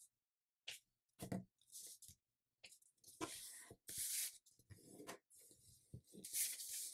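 Letter-size paper being folded and creased by hand: quiet, separate rustles and scrapes of paper sliding and being pressed flat, with a few soft taps.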